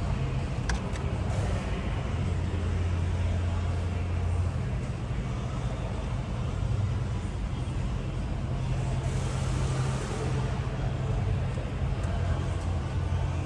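Ford F-150 pickup's engine idling steadily, a low hum heard from inside the cab, with light clicks and rustling of work under the dash.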